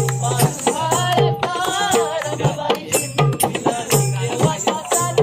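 Marathi folk song with a dholki drum beating a quick rhythm under a sung melody and high jingling percussion.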